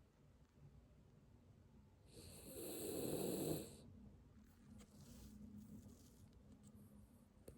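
A dog snoring in its sleep: one loud snore about two seconds in, lasting under two seconds, then a fainter snoring breath.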